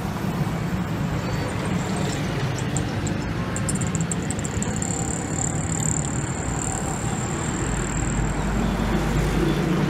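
Street traffic on a busy city road: cars, motorcycles and auto-rickshaws passing with engines running and tyre noise. A thin high whine sounds for a few seconds in the middle, and a deeper rumble comes in near the end.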